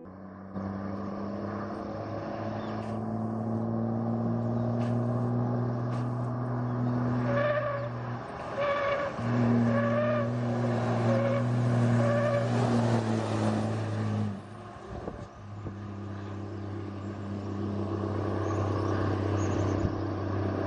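Diesel engine of a Volkswagen Constellation truck running under way with a steady note. The note breaks off briefly about eight seconds in and again about fourteen seconds in. Between about seven and twelve seconds there is a run of short high beeps.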